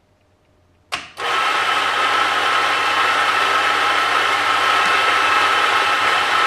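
Macap MXDL on-demand espresso grinder motor starting with a sharp onset about a second in, then grinding steadily as it dispenses a timed double shot of coffee.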